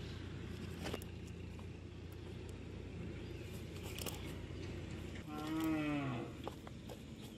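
A cow lowing once: a single moo of about a second near the end, falling in pitch. Under it there is a steady low hum that stops just before the call, and a few light clicks as fish and cast net are handled.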